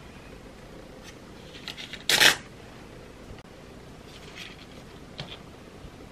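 Paper handling: light rustles, then a short loud rip about two seconds in as a page is torn from a tear-off day calendar, followed by softer crinkling of the loose page and a brief tap.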